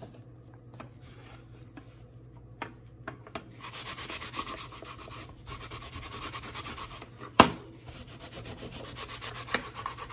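Rapid rubbing strokes of an AR-15 magazine being wiped down with alcohol, starting about three and a half seconds in and pausing briefly twice, with one sharp click about seven seconds in.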